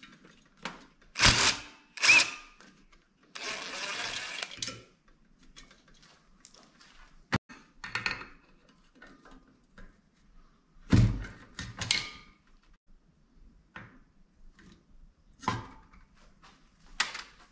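Tools working on the Predator 212 engine while the governor arm is removed: scattered metal clicks and knocks, with a cordless impact driver running for about a second and a half about three seconds in.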